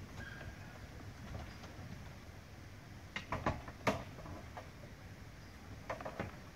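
Faint low rumble, with a quick run of sharp knocks about three seconds in, a single louder knock just before four seconds, and a few more near the end.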